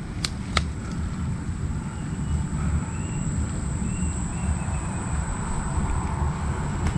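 Steady low rumble of handling and wind noise on a handheld camera as it is carried over dry grass and leaves. A faint, continuous high-pitched whine runs underneath, and there are two sharp clicks about half a second apart near the start.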